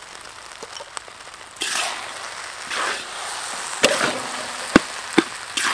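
Fried rice being stir-fried in a wok with a metal spatula. From about a second and a half in come sizzling swishes as the rice is turned, with a few sharp clinks of the spatula against the wok.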